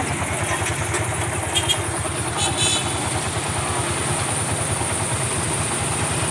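Jeepney's diesel engine running steadily with a rapid, even chugging, heard from inside the passenger cabin.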